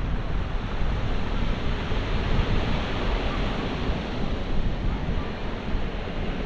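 Surf breaking and washing over a cobble beach, a steady wash of noise, with wind buffeting the microphone.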